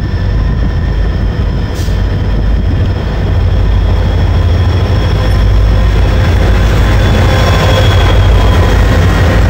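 Two diesel locomotives hauling a container freight train approach and pass close by. Their heavy engine rumble grows louder over the first few seconds, with a steady high whine above it.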